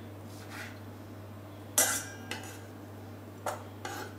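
Kitchen knife cutting figs on a wooden cutting board with soft knocks. About two seconds in there is a sharp metal clink that rings briefly, at the stainless steel bowl the cut pieces go into, followed by a few lighter clicks.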